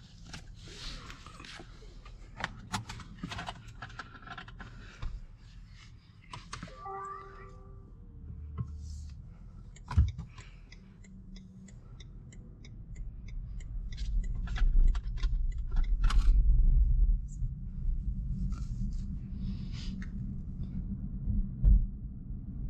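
Scattered small clicks and knocks inside a BMW i3's cabin, with a short electronic tone about seven seconds in. A low rumble builds from about fourteen seconds in and is loudest around sixteen to seventeen seconds.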